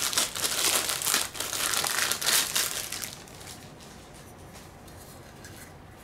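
Plastic packaging crinkling and rustling as a vacuum brush attachment is unwrapped; the crinkling stops about three seconds in.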